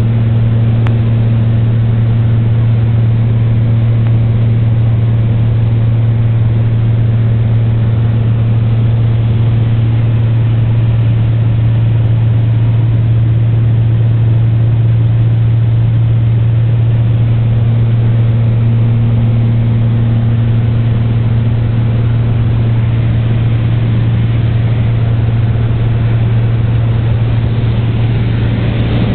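Beechcraft F33A Bonanza's six-cylinder Continental IO-520 engine and propeller running steadily at constant power, a loud, unchanging low drone heard inside the cabin.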